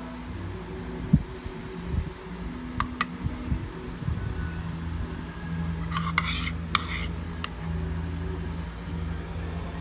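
Utensils clinking against dishes: two sharp clicks about three seconds in and a short clatter about six seconds in, over a steady low hum.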